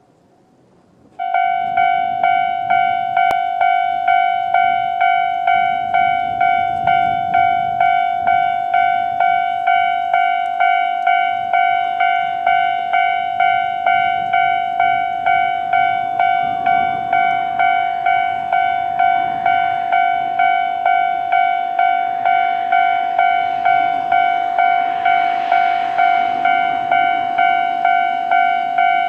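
Japanese railway level-crossing alarm starting about a second in: an electronic bell-like ding repeating about one and a half times a second, loud and even. In the second half a passing train adds a rising rumble and hiss that peaks near the end, under the alarm.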